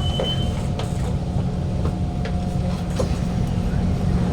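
Steady low hum inside a standing Kawasaki Heavy Industries C151 metro car with its doors open, with a few faint knocks. A brief high tone sounds at the very start.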